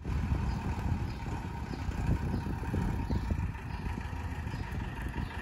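Diesel engine of a Mercedes-Benz 608 minibus running at low speed as the bus pulls slowly forward, a steady low rumble.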